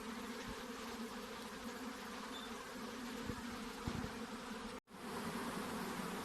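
Many honey bees buzzing in a steady, dense hum. The sound cuts out for an instant just before the end.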